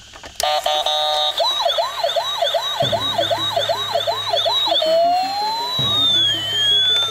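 Battery-powered toy fire rescue truck's electronic siren sound effect, switched on: a brief steady tone, then a fast warbling yelp of about two cycles a second, then a slow wail rising and falling. A low pulsing sound runs underneath from about three seconds in.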